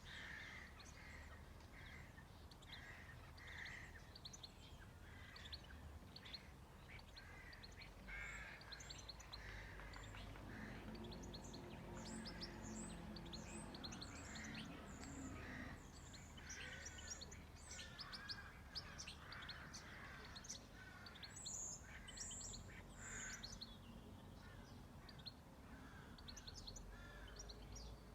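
Wild birds chirping and singing, many short overlapping calls. A fainter low, steady hum runs under them through the middle stretch.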